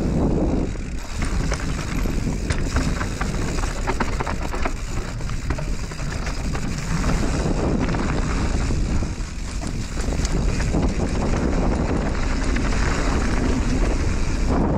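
Mountain bike riding fast down a loose dirt and gravel trail. The tyres crunch and rumble over stones, and the bike rattles and clicks over the bumps, under a steady rush of wind on the microphone.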